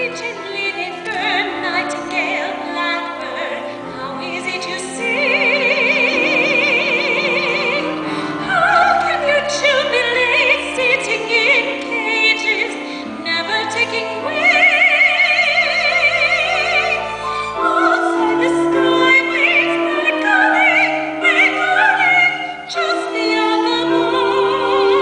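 A soprano voice sings long, wavering vibrato notes in an operatic style over an orchestral accompaniment, as in a live musical-theatre performance.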